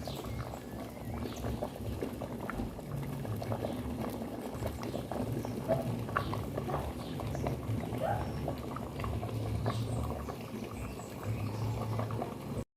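Steady rain pattering, with scattered small ticks of drops and a low hum that comes and goes.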